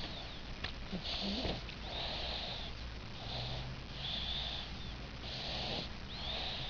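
Five-month-old baby snoring in sleep: snuffly, noisy breaths about one a second, some with a faint whistle.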